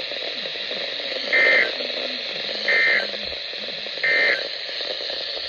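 Three short Emergency Alert System end-of-message data bursts (the EOM code) over NOAA Weather Radio, each about a third of a second and about a second apart, above steady radio static. They close the Required Weekly Test message.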